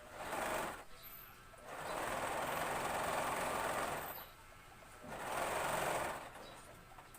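Sewing machine stitching in three short runs, the longest about two seconds, stopping briefly between them.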